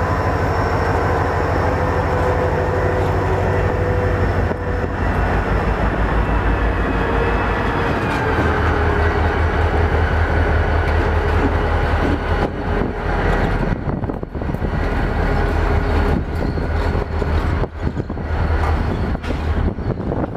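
EMD diesel road-switcher locomotives running, a steady low engine drone with a thin whine that sags slightly in pitch over the first several seconds. The sound wavers, with several brief dips, in the second half.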